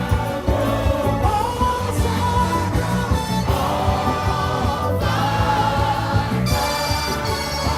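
Upbeat praise music with singing over a steady bass and drum beat.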